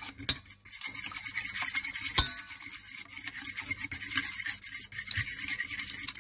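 A fork whisking raw eggs in a bowl: the metal tines scrape and tap against the bowl in quick, even strokes, with one sharper knock about two seconds in.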